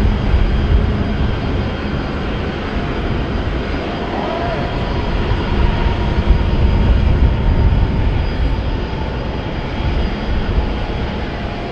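Jet airliner engines running close by: a loud, steady rumble that swells and eases a little.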